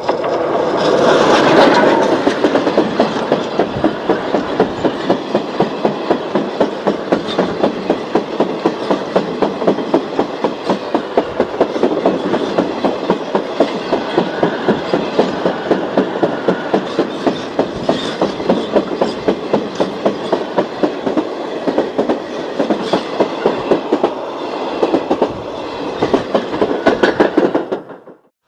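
Battery-powered Plarail toy D51 steam locomotive running on plastic track with a long string of freight wagons: a steady motor whir and plastic clatter, with a regular clack as the wheels pass the track joints. The sound cuts off suddenly near the end.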